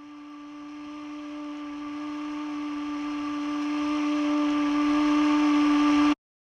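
A sustained single-pitch drone with a hissy wash above it, swelling steadily louder, then cutting off abruptly about six seconds in, followed by a moment of silence.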